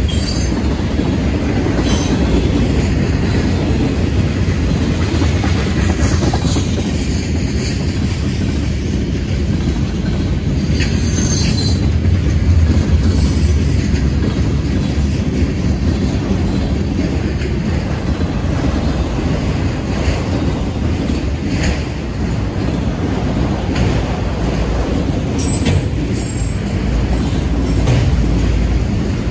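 Freight train rolling past close by: a steady rumble of cars with wheels clicking over rail joints, and a brief high wheel squeal about eleven seconds in.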